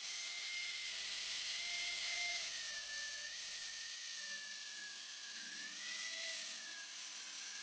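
A power grinder whirring steadily against the leaf-spring steel of a knife blank, with a hiss of grinding and a faint whine that wavers slightly in pitch.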